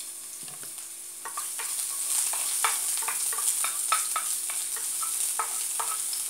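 Crushed garlic frying in hot olive oil, sizzling more strongly from about a second in, while a wooden spatula stirs it with irregular taps and scrapes against the pan.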